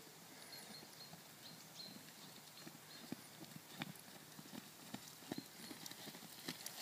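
Hoofbeats of a ridden horse on a sand arena: faint, soft thuds in a steady rhythm.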